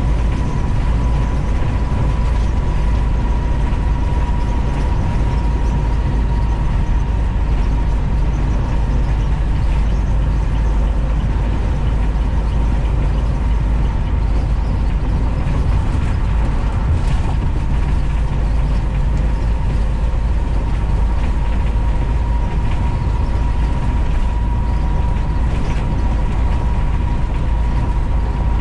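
Short bus cruising at highway speed, heard from inside the cabin: a steady engine and road rumble with light rattling and clicking from the body, and a thin steady whine over it.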